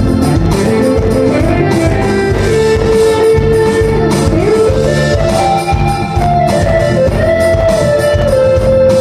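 A live band playing: guitars over bass and a regular drum beat, with a sustained lead melody that slides up and down in pitch.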